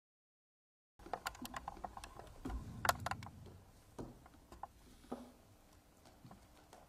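An irregular scatter of light clicks and taps, from papers being handled on a clear acrylic lectern. It starts about a second in and dies away after about five seconds.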